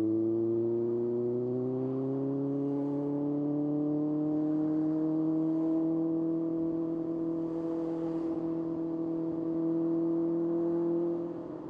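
Kawasaki ZX-6R's inline-four engine pulling in gear. Its pitch rises slowly over the first few seconds, then holds steady, and it drops away near the end as the throttle is rolled off.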